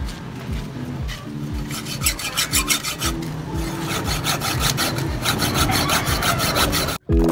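Hacksaw cutting through a short black tube with quick, even back-and-forth strokes that stop abruptly near the end.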